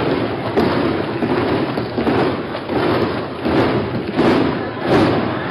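A chamber full of members of parliament cheering and applauding, a dense crowd noise with thumps recurring rhythmically about every two-thirds of a second.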